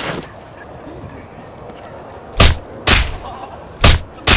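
After a couple of seconds of low background, four sharp punch sound effects land within about two seconds: two in quick succession, then two more about a second later.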